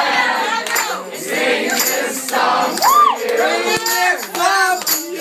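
A tightly packed crowd singing and yelling along together, with a loud rising-and-falling whoop about three seconds in and scattered sharp claps or hits.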